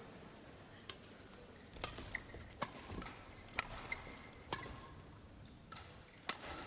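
Badminton rally: sharp racket strikes on the shuttlecock, heard faintly about once a second.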